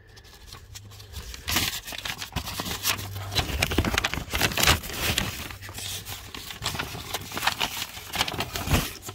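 Crinkling, rustling and clicking of a new cabin air filter and its plastic wrapping being unwrapped and handled, with irregular clicks and rustles from about a second and a half in.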